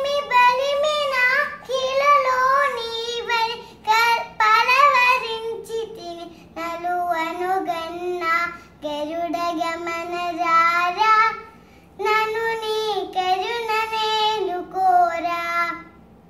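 A young girl singing a Carnatic devotional song unaccompanied, in phrases with short pauses for breath and wavering ornaments on the held notes.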